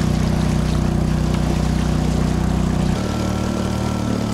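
Small outboard motor of a powered fishing kayak running steadily at one pitch, dropping to a lower steady pitch about three seconds in.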